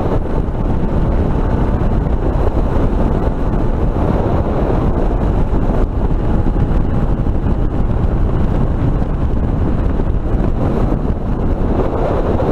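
Steady, loud wind buffeting on a camera's built-in microphone with no external mic. It drowns out a Suzuki DR650 single-cylinder dual-sport motorcycle engine running underneath at highway speed.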